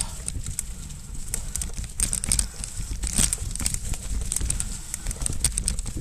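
Mountain bike riding over a rooty dirt trail: a run of irregular clicks, knocks and rattles from the bike and tyres over a low rumble.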